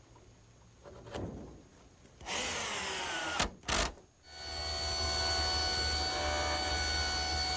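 A power drill runs for about a second and winds down, then two sharp knocks. A table saw then starts up and runs steadily for the rest of the time, ripping 1x stock at a 45-degree angle.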